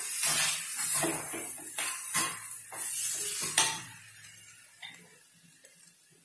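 A plastic spatula stirring and scraping broken wheat as it fries in a nonstick frying pan, in quick repeated strokes. The stirring stops about three and a half seconds in, leaving only faint background noise.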